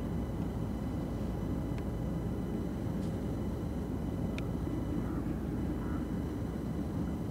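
Distant BNSF GE ES44DC locomotives' V12 diesel engines running, heard as a steady low rumble, with a few faint short high ticks.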